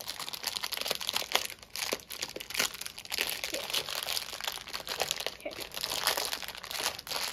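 Shiny foil-like wrapping of a small toy package being handled and pulled open by hand: a continuous crinkling rustle of many small crackles.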